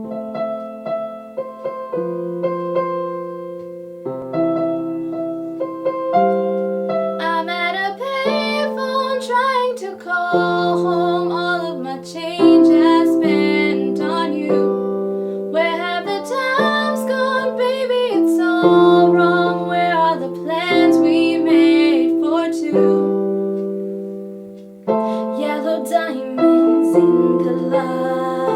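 Piano (keyboard) cover of a pop-song mashup: sustained piano chords open it, and a female voice comes in singing over the piano about seven seconds in. The music dips briefly a few seconds before the end, then the piano and voice resume.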